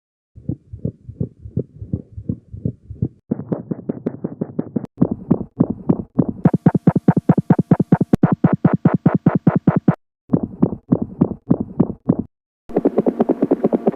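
Several short recordings of heart sounds played one after another, each cut off by a brief silence: each is a fast, regular series of heartbeat thumps. In the last one, near the end, a continuous noise fills the spaces between the beats, as a heart murmur.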